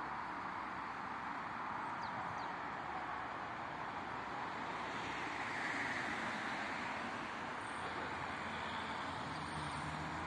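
Steady road traffic noise from cars on the street, with no crossing bell or train to be heard. Near the end a car engine hum grows as a car comes closer.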